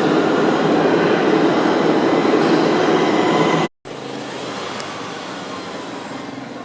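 Metro train running, a loud steady rumble and rattle of the cars on the rails, which cuts off abruptly a little over halfway through. Quieter steady background noise follows.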